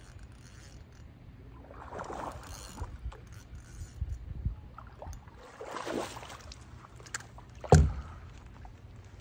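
A hooked bluegill splashing at the surface as it is played in on a light rod, with one sharp thump near the end.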